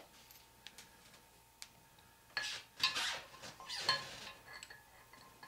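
Metal gears of a South Bend Heavy 10 lathe gearbox being worked onto their keyed shaft. A few faint clicks come first, then about two seconds of louder metal-on-metal scraping with short ringing clinks.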